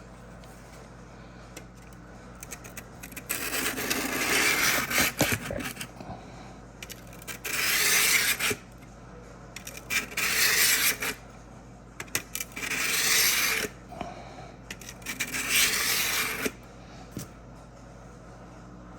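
Steel drawknife blade rubbed flat on its back across a diamond sharpening plate to knock down the burr: five scraping strokes of a second or two each, with a few light clicks between them.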